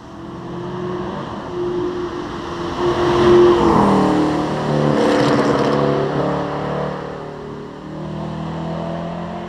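Sports car engine pulling hard up the hill-climb course, growing louder to a peak a few seconds in, then fading somewhat as the car draws away.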